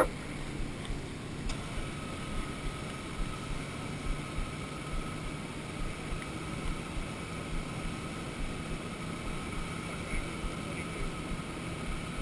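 Vehicle engine running steadily, with a sharp click at the very start. A faint steady whine comes in after a light click about a second and a half in.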